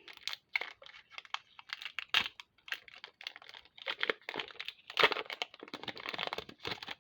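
Foil wrapper of a Pokémon card booster pack crinkling and tearing as it is opened by hand, in irregular crackles and snaps that grow busier in the second half.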